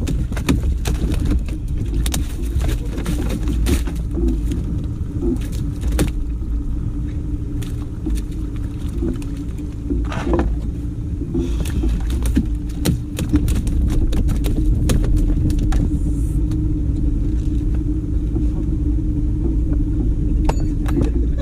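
A boat's motor running steadily, a low rumble with a constant hum, with scattered knocks and rattles over it.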